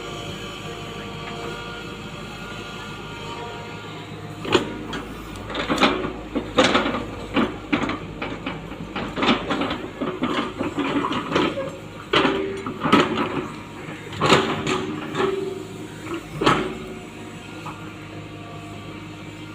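Hitachi Zaxis 120 excavator's diesel engine running steadily, with a run of irregular knocks and clanks from about four seconds in until near the end.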